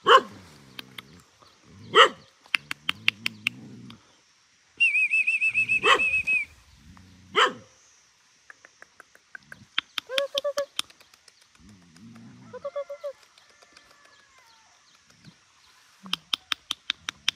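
Adult dog barking: four sharp barks spread over the first half, about two seconds apart. A high warbling trill sounds for about a second and a half between the second and third barks, and fainter whimpers come later.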